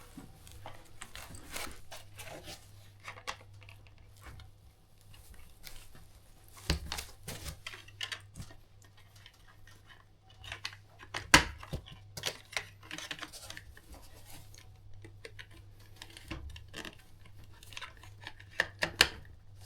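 Scattered small clicks, taps and rattles of steering-wheel parts and hand tools being handled on a workbench, with one sharp click about eleven seconds in, over a steady low hum.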